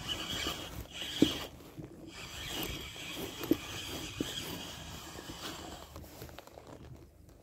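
Rubbing, rasping handling noise with three soft knocks, the sound dying down near the end.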